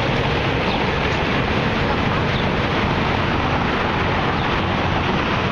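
Steady city street noise with traffic running, an even roar with no single event standing out.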